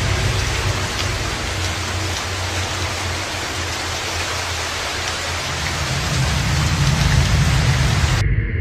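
Steady hiss of heavy rain over a low rumble. The hiss cuts off suddenly near the end, leaving the rumble.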